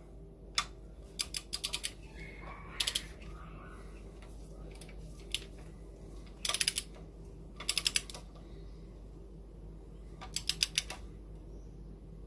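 Ratchet of a torque wrench clicking in short runs of quick clicks, with pauses between, as a new cylinder head bolt is tightened on the first 30 Nm pass.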